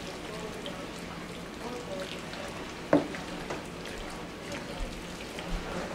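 Pasta being tossed with pesto in a ceramic bowl: soft wet stirring with scattered clicks of utensils against the bowl, and one sharper clink about three seconds in.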